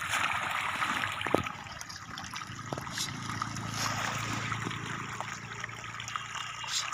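Many fish splashing and churning at the surface of a pond as they feed, a steady patter of small splashes.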